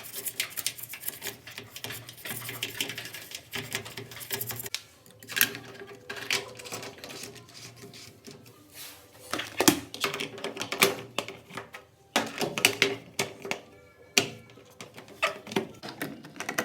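Background music with a dense, irregular run of sharp clicks and taps, like typing.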